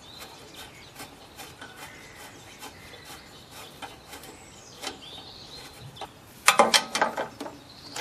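Ratchet spanner clicking in small strokes while tightening the carburetor mounting bolts on a Briggs and Stratton mower engine, with a louder metallic clatter and squeak about six and a half seconds in.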